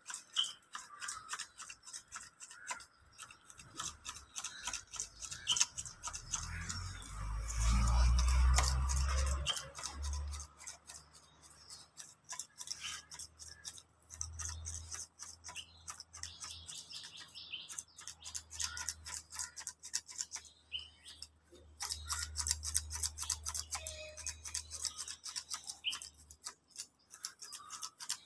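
Hand grass shears snipping grass in a rapid, steady run of crisp cuts. A low rumble rises over it for a few seconds about a quarter of the way in.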